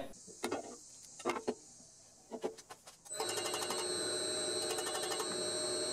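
A few light clicks and knocks of handling, then about three seconds in a drill press starts and runs steadily with a high-pitched whine.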